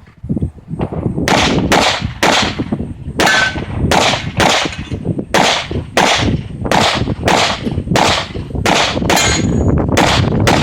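Handgun fired in a fast string of shots, about eighteen in all at two to three shots a second, each a sharp crack with a short ringing tail, with a brief pause near the middle.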